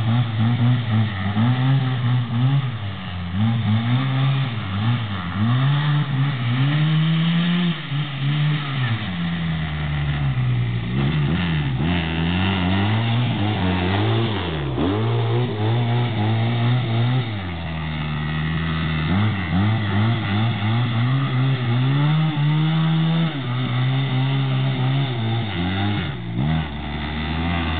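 SMC Triton Mistral quad's 250cc twin-cylinder engine being ridden hard, the throttle opened and closed again and again. Its pitch rises and falls about once a second, with a few steadier spells.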